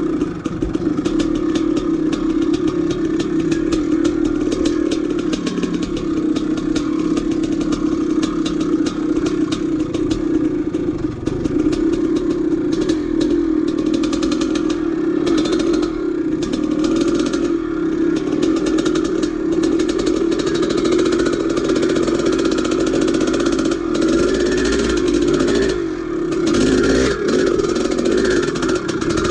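A 1983 Maico 490's single-cylinder two-stroke engine running as the dirt bike is ridden, holding a fairly steady engine speed and dipping briefly a few times, with frequent clattering from the bike.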